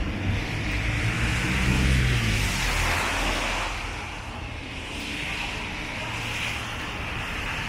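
A car passing on a wet road: engine hum, then tyre hiss swelling to a peak about three seconds in and fading away into steady background traffic.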